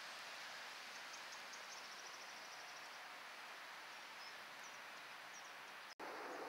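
Faint outdoor ambience: a steady hiss with a few small birds chirping high and thin, including a quick trill about a second and a half in, and more chirps near the end. The sound drops out for an instant near the end.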